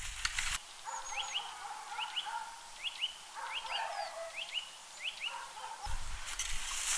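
A rake scratching through dry leaves and grass for the first half-second, then a bird calling: repeated pairs of quick rising notes, about seven pairs over five seconds, over a lower rough chatter. A low rustling noise comes back near the end.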